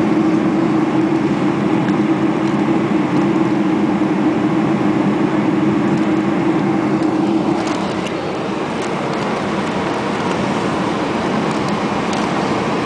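Steady cabin roar inside a Boeing 747-400 airliner. A hum runs under the rushing noise and fades out a little over halfway through, and the overall sound gets slightly quieter at that point.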